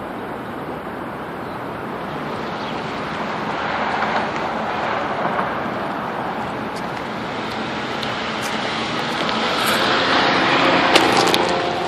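Road traffic noise: a steady rush of passing vehicles that swells twice, loudest near the end.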